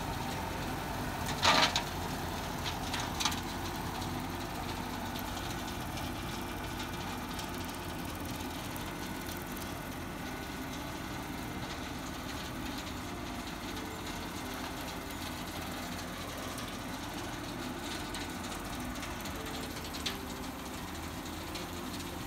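Farm tractor engine running steadily while it drives a rotary brush hog cutting tall grass. Two sharp knocks stand out about a second and a half and three seconds in, and a smaller click comes near the end.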